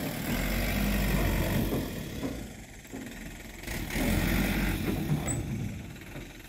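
A motor vehicle's engine running at idle: a steady low rumble that swells twice and eases off near the end.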